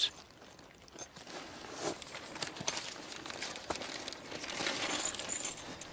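Faint rustling and crinkling with a few light clicks, from gloved hands and clothing as researchers handle a wolf and fit a radio collar around its neck.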